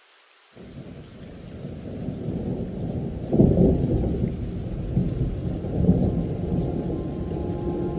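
Thunder rumbling: it comes in abruptly about half a second in, builds to its loudest a little past three seconds, then rolls on as a deep, uneven rumble.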